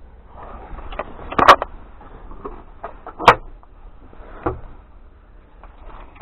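Cupboard and locker doors in a sailboat's cabin being opened and shut: a run of knocks and light clicks, with two sharp clacks, the first about a second and a half in and the second near the three-second mark, and a softer knock a little later.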